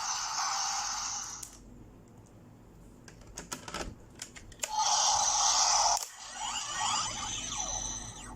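Electronic sound effects from a Kamen Rider Gaia Memory toy, broken up by sharp plastic clicks of handling. A hissing burst is followed by a run of clicks, then a second hissing burst, then sliding electronic tones near the end.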